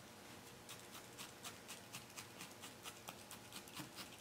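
Felting needle tool stabbing repeatedly into wool on a burlap-covered felting pad: faint, even ticks about four times a second.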